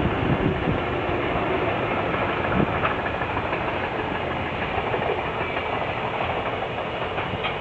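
A freight train hauled by a JR Freight EH200 electric locomotive running past: a steady, loud rumble of wheels on rail, with a few clacks over rail joints.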